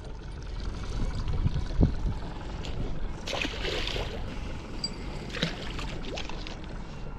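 Water lapping and splashing against a boat's hull over a low steady rumble, with a thump about two seconds in and a louder splash around three and a half seconds in.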